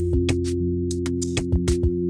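Background music with sustained low notes and a quick percussive beat.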